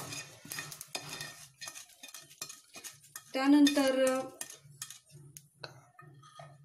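A wooden spatula scrapes and taps against a non-stick pan, sweeping roasted mustard seeds out of it, in a run of short scrapes and clicks. A little past the middle, a loud steady tone sounds for about a second, and a few faint taps follow.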